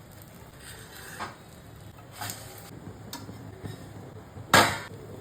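Kitchen handling sounds: a few soft knocks and scrapes, then one sharp, much louder clack about four and a half seconds in.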